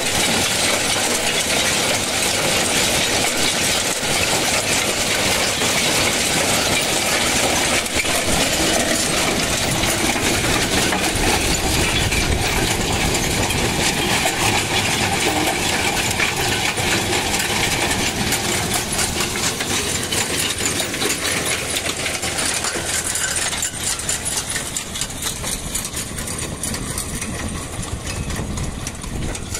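Tractor-drawn stone picker at work: stones and soil clatter and rattle on its shaking steel sieve over the steady running of the New Holland tractor's engine. The sound eases off a little over the last several seconds.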